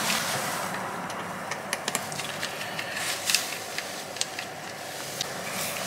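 A few faint, light clicks of fingers handling the battery connector on a MacBook Pro A2338 logic board as it is unplugged, over a steady background hiss.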